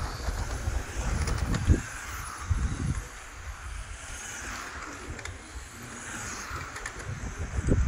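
Electric RC touring cars with 13.5-turn brushless motors whirring around the track, the whine rising and falling in pitch as they pass. Wind gusts rumble on the microphone now and then.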